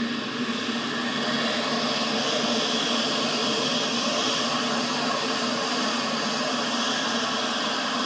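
Lockheed L-1011 TriStar's Rolls-Royce RB211 jet engines running with a steady rush of noise and a high whine.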